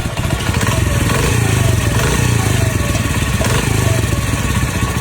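Motorcycle engine running steadily at a low, even speed.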